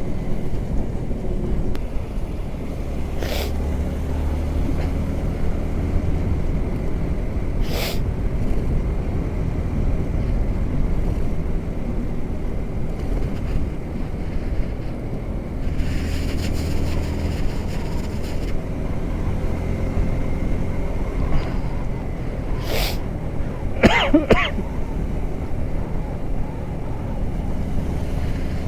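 Yamaha R15M's single-cylinder engine running steadily while riding, mixed with wind noise. A few short, sharp sounds break in, the loudest a brief wavering one near the end.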